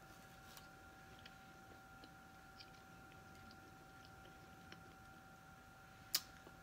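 Faint chewing with small mouth clicks, over a faint steady background tone; one sharper click near the end.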